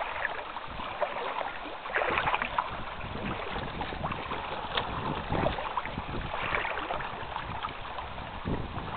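Water sounds around a canoe: irregular splashes and swishes a few seconds apart over a rough, steady noise.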